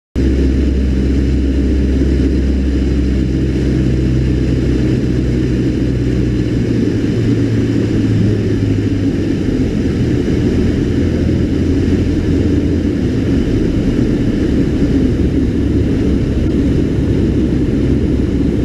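Cessna 152's four-cylinder Lycoming O-235 engine and propeller running as a steady, loud drone that cuts in abruptly at the start; its low tones shift about seven seconds in.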